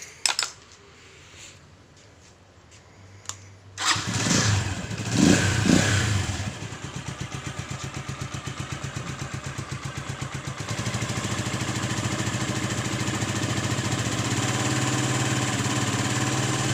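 Keeway Cafe Racer 152's single-cylinder engine starting about four seconds in after a few light clicks, revving briefly, then idling steadily. The popcorn-like rattle from its worn camshaft bearing is gone now that the bearing has been replaced.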